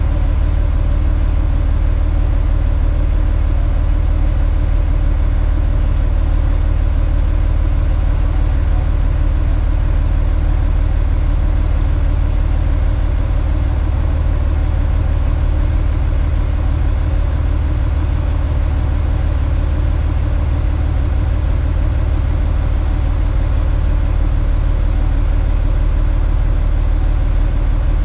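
Rollback tow truck's engine idling steadily, a constant deep hum.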